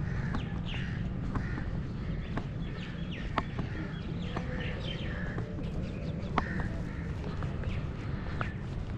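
Many birds chirping and calling, with crows cawing among them, over a steady low rumble. Two sharp clicks stand out, about three and a half and six and a half seconds in.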